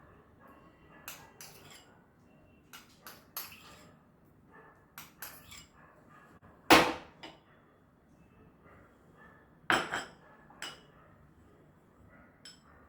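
Spoon clinking and knocking against a bowl as hung curd and other marinade ingredients are spooned in: scattered light clicks, with two sharp knocks, one a little past the middle and one about three quarters of the way through.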